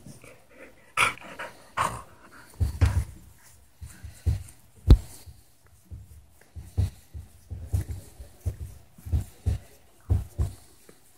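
Black Labrador making short breathy dog noises while being rubbed, in irregular bursts about two a second. Low thumps are mixed in, the loudest about five seconds in.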